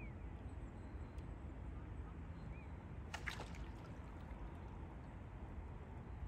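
A brief splash about three seconds in as a grey heron stabs its bill into a lily pond, over a steady low outdoor rumble.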